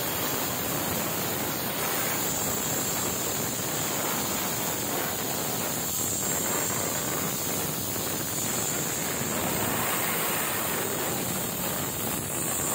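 Stovetop pressure cooker whistling: steam jets out under the weight valve in a long, steady hiss, the sign that the cooker has come up to full pressure.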